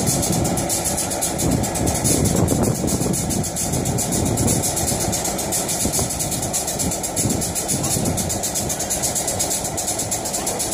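CP Rail 1608 diesel locomotive idling steadily while the turntable it sits on is turned.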